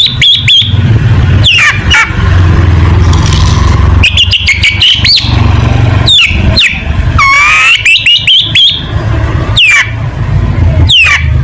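Long-tailed shrike (cendet) singing loudly: quick chattering runs of high notes and sharp down-sweeping whistles, repeated in bursts every second or two, over a steady low hum.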